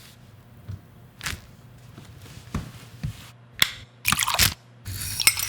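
Foley sound effects on a film clip's soundtrack: a few soft thumps, then louder crackling, hissing bursts over the last two seconds.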